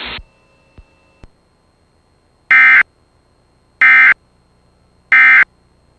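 Emergency Alert System end-of-message data bursts: three short, identical screechy digital bursts about a second and a half apart. They are the SAME end-of-message code that marks the end of the alert. Before them a hiss cuts off at the start, followed by two faint clicks.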